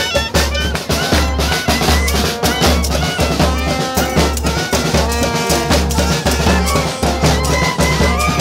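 Live street band playing: clarinet and trombone carry the tune over a steady bass-drum beat and snare drum.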